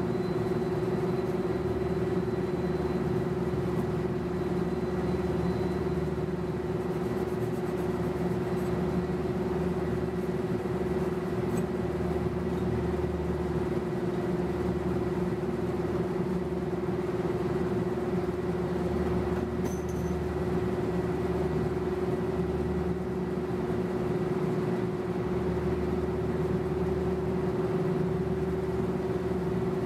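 Large rooftop HVAC condenser units running: a steady mechanical drone with a strong constant-pitch hum and a low rumble that swells and fades.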